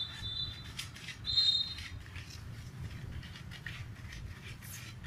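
A kitten eating dry kibble, with irregular small clicks and crunches. Two short, high, steady tones sound in the first two seconds, the second one the loudest.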